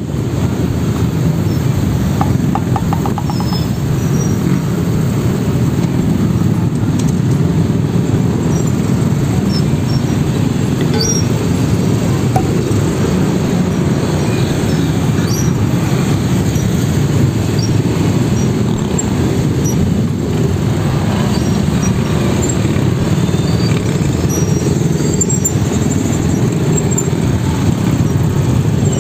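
Steady rumble of road traffic, motorcycle and car engines running and creeping forward in a slow, congested city lane, with a brief rapid ticking about two seconds in.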